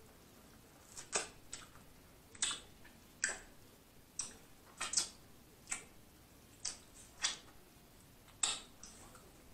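Close-miked chewing of a mouthful of corn on the cob: about a dozen short, sharp, wet mouth clicks and smacks, spaced unevenly.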